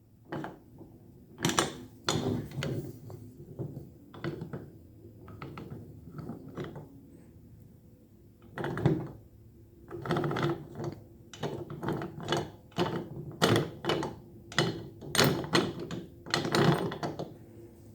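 Metal corner clamp being handled: irregular clicks and knocks as its quick-release button is pushed and the parts are worked, thicker from about halfway on. The button sticks in the pushed position, a fault of this clamp.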